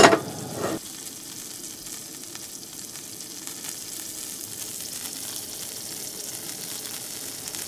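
Three-cheese smoked sausage sizzling steadily in a cast-iron skillet on a gas camp stove. A sharp, loud clank right at the start.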